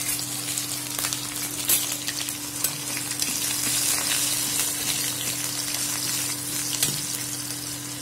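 Sliced onions sizzling and crackling in hot oil with mustard, cumin and fenugreek seeds in a kadai, the tempering for a curry, with a steel spatula stirring and scraping the pan now and then.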